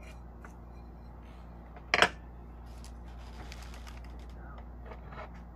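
Small hard objects handled by hand on a work surface: scattered light clicks and taps, with one sharp knock about two seconds in, over a steady low hum.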